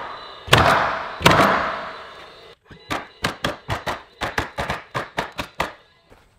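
DeWalt cordless roofing coil nailer firing twice into Versetta Stone siding panels, each shot a sharp crack with a short ringing decay. After a brief gap, a quick run of about a dozen short sharp clicks, roughly four a second, stops shortly before the end.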